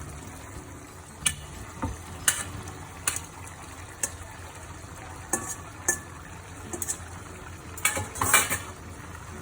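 Coconut green curry sauce bubbling and sizzling in a pan while cooked linguine is added and tossed in, a utensil clinking against the pan about nine times, loudest near the end.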